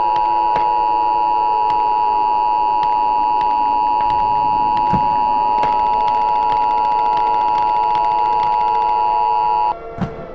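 Emergency Alert System attention signal: two steady tones just under 1 kHz sounding together for about ten seconds, cutting off sharply near the end. Fainter sliding tones run underneath.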